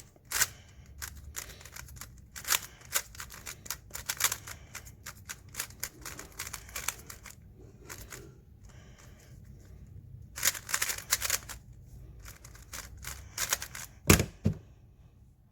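Rapid clicking of a 3x3 speed cube (GAN 356 XS) being turned, in quick bursts with short pauses, then a single louder knock about 14 seconds in.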